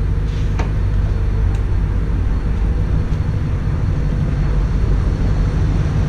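Steady low rumble of a ship under way, its engine heard on the open deck with wind noise on the microphone.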